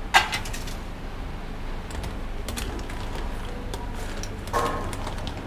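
Metal cooking utensils clinking and scraping against a pot of white clams and a wok on the stove, with two louder metal clangs, one just after the start and one near the end, over a steady low hum.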